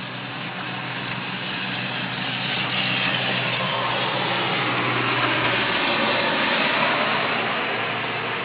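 A motor vehicle going by, a rushing noise over a low engine hum that swells for several seconds and then fades; the hum drops out about three quarters of the way through.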